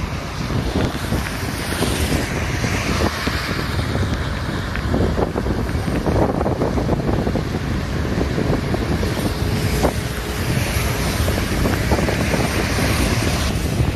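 Rainstorm with strong wind buffeting the microphone: a steady, loud rushing noise with low rumbling gusts.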